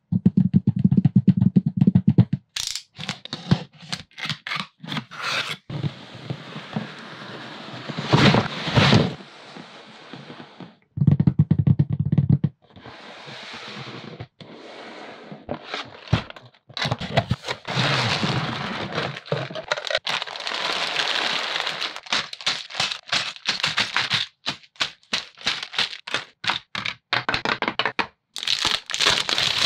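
Plastic building bricks being handled and fitted together: quick runs of sharp clicks and clatters, with longer stretches of crackling and scraping.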